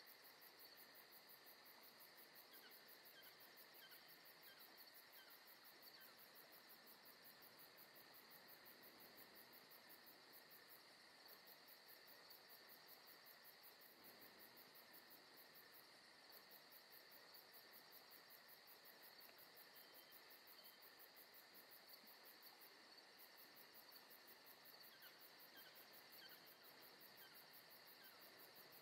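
Very faint, steady high-pitched insect chirring, with a rapid even pulse.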